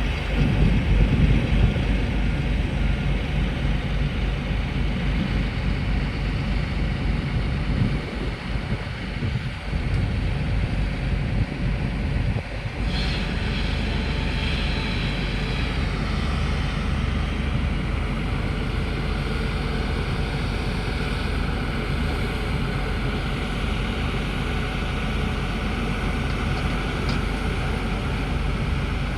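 Excavator's diesel engine running steadily under work, a continuous low drone; about thirteen seconds in the sound shifts and a higher whine joins it.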